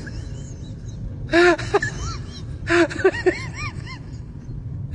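Human laughter in short breathy bursts, two bouts about a second and a half apart, over a steady low hum.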